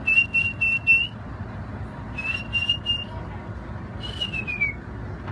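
Bald eagle calling: a quick run of short, high piping notes, another run about two seconds in, and a call about four seconds in that slides down in pitch.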